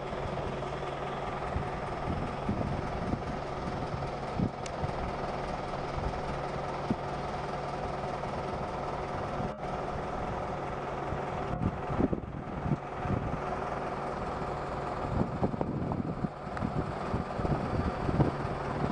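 An engine running steadily with a constant low hum, broken by scattered knocks and thumps. Near the end the sound turns rougher and more uneven.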